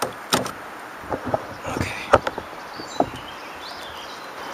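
A series of sharp knocks and thumps as a caught smallmouth bass is handled in a canoe and released over the side, the loudest about two seconds in.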